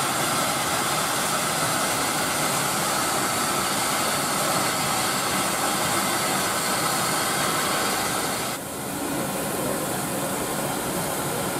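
Steam hissing steadily from the LNER Class A3 Pacific steam locomotive Flying Scotsman, venting low down at the front. The hiss drops abruptly about eight and a half seconds in.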